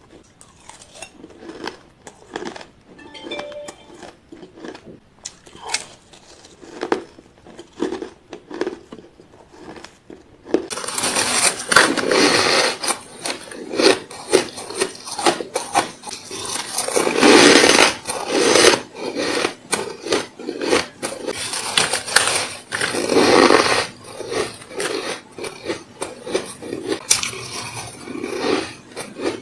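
Close-up crunching of ice being bitten and chewed, with sharp clicks of a metal spoon against a steel bowl of shaved ice. About ten seconds in it changes to louder, denser, rasping crunches as clumps of powdery frozen ice are bitten.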